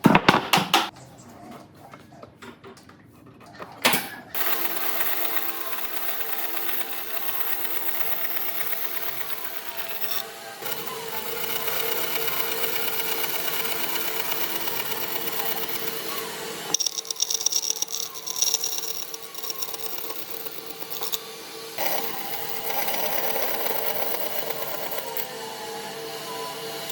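A few sharp knocks, then a small electric power tool running steadily with a constant hum, its sound shifting a few times as it works the wood.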